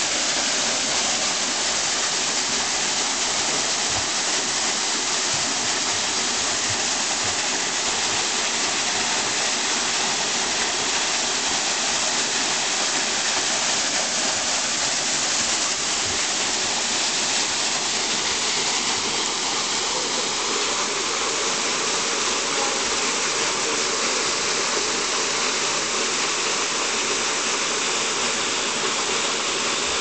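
Small waterfall pouring into a shallow pool, a steady rushing hiss of falling water.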